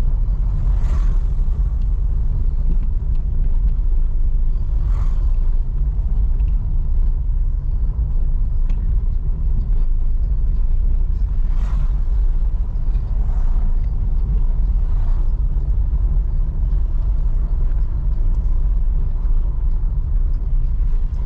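Steady low rumble of a car on the move, heard from inside, with a few faint brief swells of higher noise over it.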